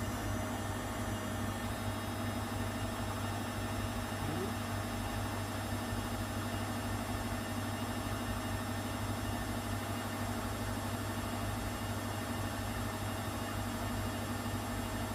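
Schulthess Spirit 6155 front-loading washing machine running with a steady electrical hum, with a brief faint rising whine about four seconds in.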